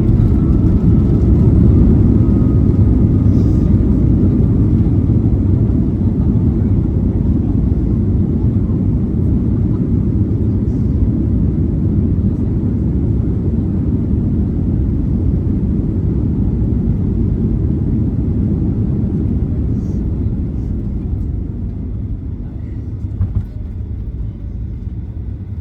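Cabin noise of a Boeing 737-800 rolling out on the runway after landing: a loud low rumble of its CFM56 engines and the wheels on the runway, fading steadily as the jet slows.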